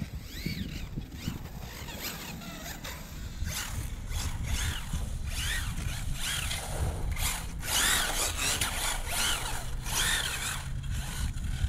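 Sensored Reedy brushless motor in a four-wheel-drive 1/10 short course RC truck, running on its newly replaced rotor, whining up and down in pitch over and over as the truck speeds up and slows, over a steady low rumble.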